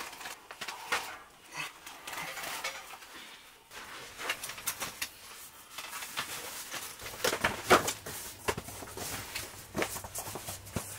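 Wood fire crackling, with irregular sharp snaps and pops; the loudest snap comes about three-quarters of the way through.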